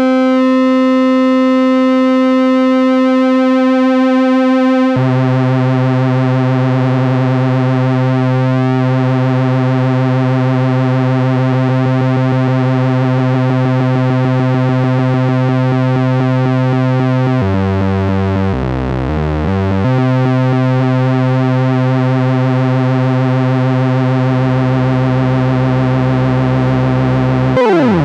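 Vintage Korg MS-20 analog monophonic synthesizer holding a buzzy sustained note, its tone shifting as the pulse width is swept through the newly installed PWM routing. About five seconds in it drops an octave, the pitch jumps about in quick steps for a couple of seconds past the middle, and near the end it dives sharply downward.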